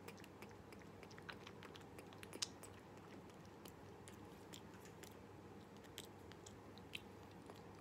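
Faint, irregular mouth clicks and smacks from a tufted capuchin monkey sucking milk from a feeding syringe, the sharpest about two and a half seconds in and another near the end.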